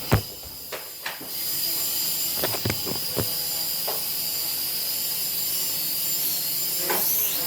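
Small toy quadcopter drone with its propellers spinning, a steady high whine and hiss whose pitch wavers near the end, with a few sharp knocks and clicks, the loudest right at the start.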